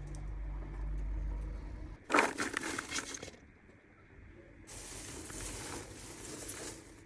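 Popcorn crackling and rustling: a low steady hum at first, then a burst of sharp crackles about two seconds in, and a longer hissing rustle in the second half.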